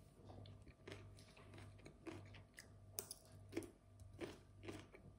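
Close-up chewing of crunchy food, a crunch about every half second, with a sharp click about three seconds in.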